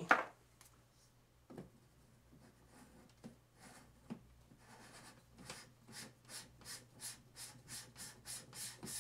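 A camera being screwed onto the threads of a William Optics Flat 73A flattener by hand. There is a sharp click at the start and a few light knocks, then, in the second half, a steady run of short scratchy strokes, about three a second, as the threads are turned.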